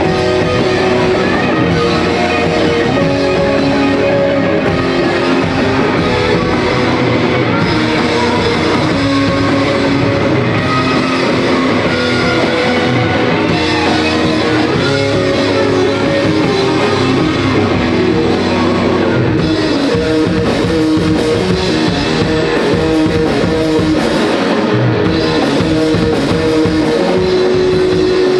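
A rock band playing live on stage, with electric guitars and a drum kit. The low end drops away about twenty seconds in.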